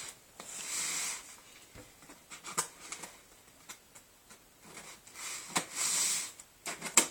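Knife slicing through the packing on an Amazon shipping package: two drawn-out scraping strokes, with a few sharp clicks and snaps between them, the loudest near the end.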